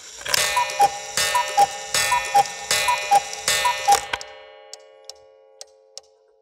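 Cuckoo clock calling five times, each a falling two-note cuckoo, over a bright ringing chime. The ringing fades after about four seconds and the clock's ticking carries on at about two ticks a second.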